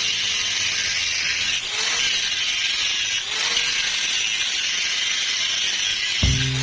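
Angle grinder running under load, a steady high-pitched grinding hiss with short dips about a second and a half and three seconds in.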